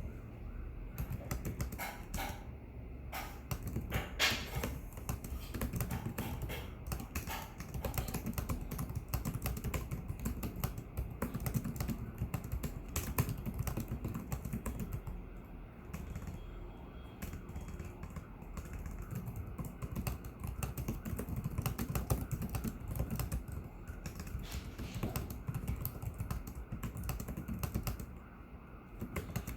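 Typing on a Lenovo IdeaPad 330S laptop keyboard: a quick, irregular run of key clicks with a few short pauses.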